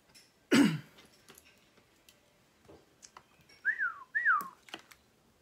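Two short whistle-like chirps about half a second apart, each rising then falling in pitch, after a brief loud sweep that drops in pitch about half a second in.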